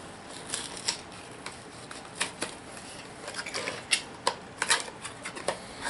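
HeroClix booster pack being handled and opened: irregular sharp clicks and crinkles of packaging, with the plastic figures inside knocking.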